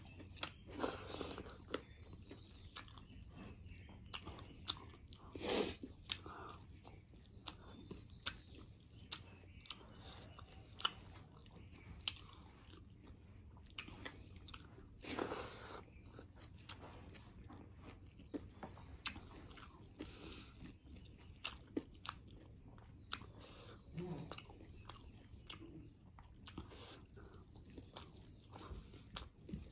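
A person chewing and biting food, with wet mouth clicks and smacks while eating rice and fish curry. Many short clicks are scattered throughout, with two louder bursts about 6 and 15 seconds in.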